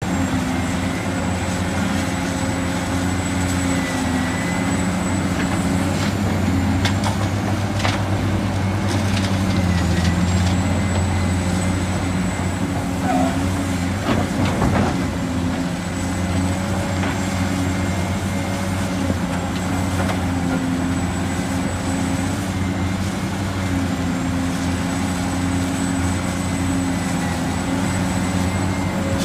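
Heavy diesel earthmoving machinery running steadily under work, with a thin high whine over the engine drone and a few knocks partway through.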